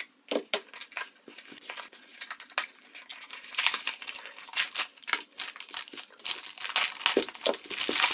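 Brown paper wrapping and tape crinkling and tearing as a small parcel is unwrapped by hand, in irregular crackles that grow busier about halfway through. Near the end a plastic bag crinkles as it is opened.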